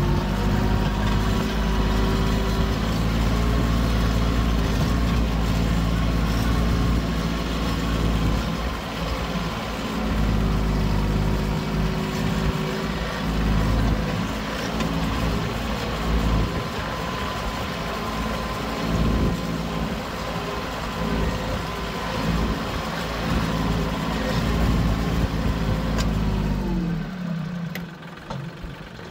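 Compact tractor engine running steadily while the tractor is driven, with a faint steady whine over it. Near the end the engine note drops in pitch and the sound falls quieter.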